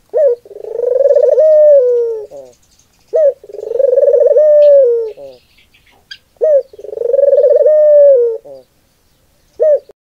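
Ringneck dove cooing close by: three rolling coos about three seconds apart, each a short note, then a long rolling note that dips at its end, then a short trailing note. One more short note comes near the end.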